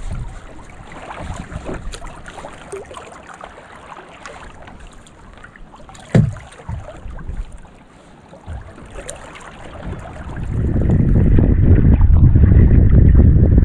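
Small clicks and knocks of a fishing rod and reel being handled, with one sharp knock about six seconds in. From about ten seconds in, wind buffets the microphone loudly and covers everything else.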